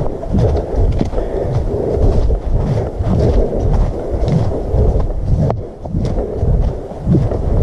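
Footsteps of a hiker walking through dry fallen leaves, about two steps a second, each step a low thump with a rustle of leaves, mixed with rumble from the carried camera.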